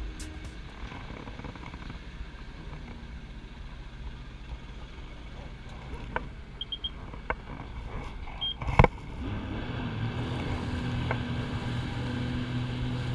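Sea-Doo jet ski with a low rumble of engine and water noise. A sharp knock comes about nine seconds in, after which a steady engine hum sets in.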